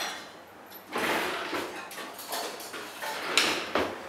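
Tableware being handled at a dining table during a meal: several short scrapes and a sharp click about three and a half seconds in.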